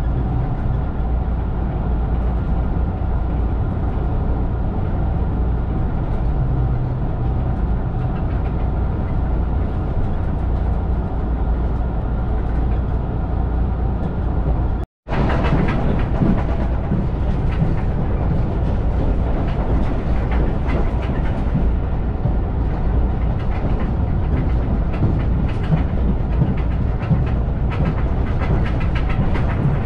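Running noise of a JR Kyushu 883 series electric limited express at speed, heard from inside the car: a steady low rumble of wheels on rail. About halfway through it cuts out for a moment, and after that it is brighter, with frequent clicks from the track.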